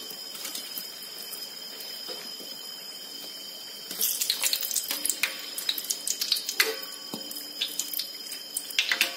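Cassava fritters sizzling steadily in hot oil in a wok. From about four seconds in, a metal spatula scrapes and clinks against the wok and a perforated metal skimmer as the fritters are lifted out to drain.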